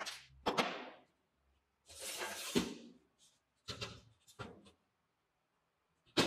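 Aluminium angle frame parts and a thin steel rod knocking and clinking against each other and the wooden bench as they are handled and the rod is slid into a corner bracket. A few short sharp knocks, with a longer sliding sound around two seconds in that ends in a knock.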